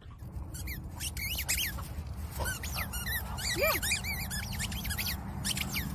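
A rapid run of short, high-pitched squeaks, many a second, each rising and falling in pitch.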